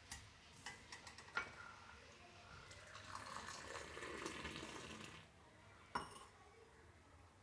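Hot tea being strained into a cup: a few light clinks of the pan and strainer against the cup, then a pour lasting about two seconds, and one more clink near the end.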